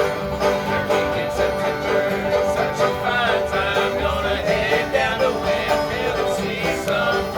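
Bluegrass band playing live, with banjo picking over guitar and other strings.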